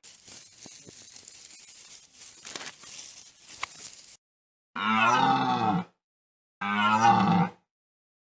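A faint hiss for about four seconds, then, after a short silence, two loud animal calls about a second each, with a pitch that rises and falls.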